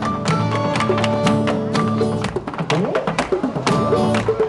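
Live Irish folk music with guitar and bodhrán, overlaid by many sharp clicks and taps of hard-shoe Irish dancing on a wooden stage.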